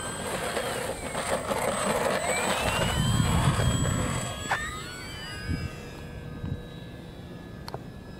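Radio-controlled electric ducted fan jet taking off: a high whine that rises in pitch and grows louder over the first few seconds, then drops in pitch and fades as the jet climbs away.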